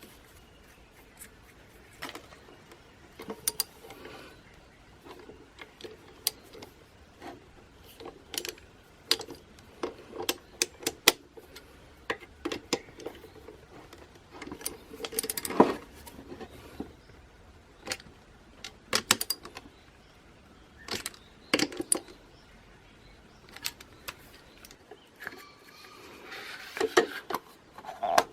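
Irregular metallic clicks, taps and clinks of small metal parts and hand tools being handled, with a short rattling flurry near the end.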